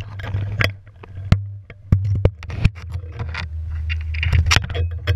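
Handling noise on an action camera: a nylon rope rubbing against and knocking on the housing as it is coiled, with irregular sharp knocks and rustles over a steady low rumble.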